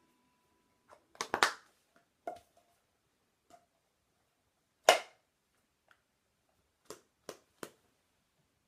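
A can of Grizzly long cut dipping tobacco being packed by flicking the wrist, each flick snapping the can against the finger. There are about a dozen sharp snaps at uneven spacing: a cluster about a second in, the loudest about five seconds in, and a quick run of three near the end.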